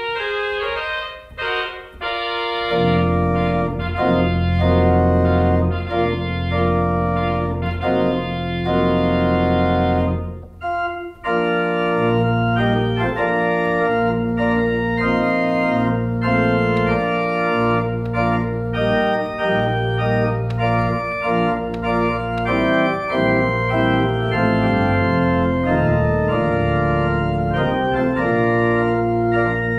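Pipe organ playing sustained chords, with low pedal bass notes coming in a few seconds in. The music breaks off briefly partway through, then carries on.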